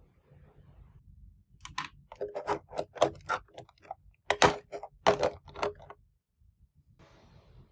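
Small hard plastic toys being handled, clicking and tapping against each other and a hard surface in a quick run of about twenty taps lasting some four seconds, loudest near the middle.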